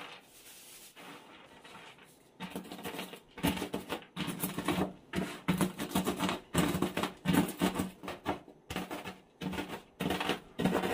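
Quick, uneven knocking and clattering of kitchen utensils on a work surface, starting about two and a half seconds in after a quieter stretch.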